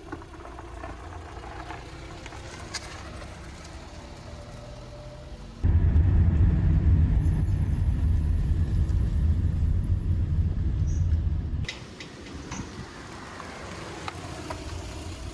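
Lada Granta on the move, with low road and tyre rumble that grows much louder in the middle. A thin, very high brake squeal holds steady for about four seconds during the loud part, the squeal the car's brakes are known for.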